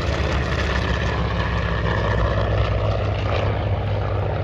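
Formation of WWII piston-engine fighters, a P-51 Mustang, two P-47 Thunderbolts and an F4U Corsair, flying past. Their Merlin V-12 and R-2800 radial engines make a steady, deep propeller drone.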